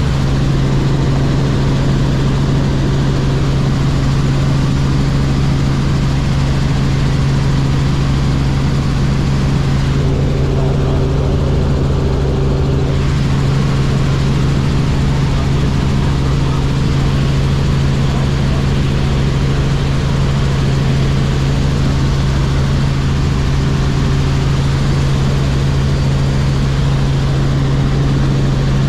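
Robinson R44 Clipper helicopter in flight: its piston engine and rotors make a steady drone with a strong, constant low hum.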